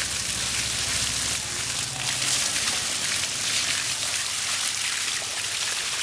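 Water from a garden hose spraying onto an elephant's wet hide and splashing onto the flooded ground, a steady hiss of spray. A low hum fades out about two seconds in.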